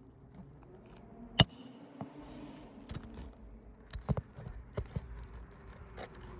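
Hammer striking a roof snake to drive roofing nails under the shingles: one loud, ringing metallic blow about a second and a half in, then about five lighter knocks roughly a second apart.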